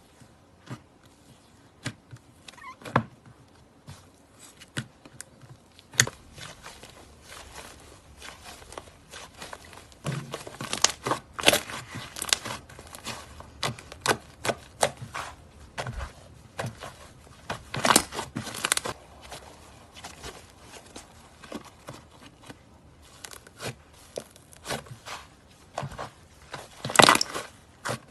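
Slime being squeezed and stretched by hand, giving an irregular run of sticky clicks, pops and crackles that grows busier about a third of the way in.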